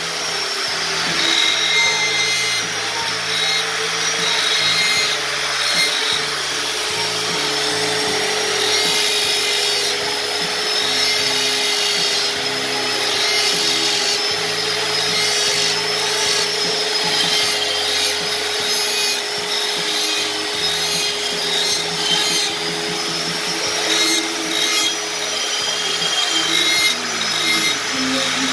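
Handheld electric grinder fitted with a small carving bit, running steadily while cutting feather grooves into wood; its whine wavers in pitch as the bit bites in and eases off.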